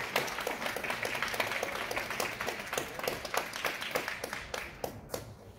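Scattered applause from a small crowd of tennis spectators, many individual hand claps that thin out and fade away over a few seconds.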